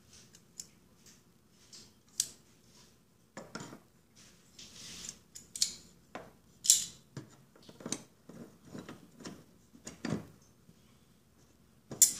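Irregular metallic clicks, clinks and a brief scrape of pliers being handled and the metal lock ring of a fuel pump module being worked on the fuel tank, with the ring refusing to seat over the new tank seal.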